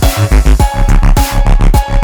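Background music: an electronic hip-hop beat with heavy, pulsing bass and steady drum hits.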